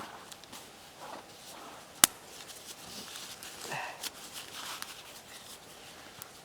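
Campfire wood crackling and snapping in scattered sharp pops, with one loud sharp snap about two seconds in, over soft rustling.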